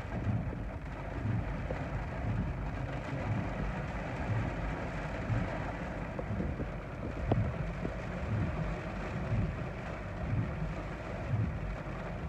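Heavy thunderstorm rain and wind on a car, heard from inside the cabin: a steady rushing with irregular low thuds.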